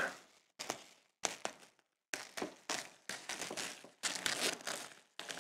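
Gloved hands handling and posing a small plastic action figure beside its plastic packaging: soft, scattered rustles and clicks in short clusters with brief gaps between them.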